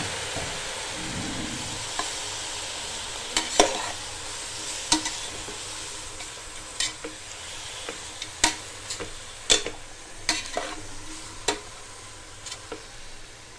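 Chicken pieces sizzling in hot oil in a pressure cooker pot, the sizzle slowly dying down, while a metal ladle stirs them and knocks against the pot about a dozen times.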